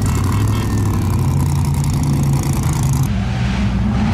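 Off-road race buggy's engine running at a steady pitch, with a rapid crackle over it. About three seconds in, the sound changes abruptly to a smoother, steady engine tone.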